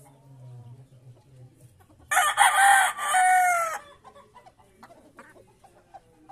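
A gamefowl rooster crows once, a loud call starting about two seconds in and lasting under two seconds, its pitch falling at the end.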